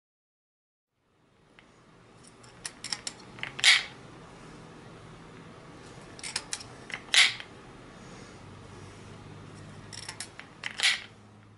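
Handmade wooden rubber band machine pistol being loaded by hand: light clicks and taps as each rubber band is hooked and stretched to the barrel, then a sharp click as the retention wheel is cocked back. This happens three times, about three and a half seconds apart.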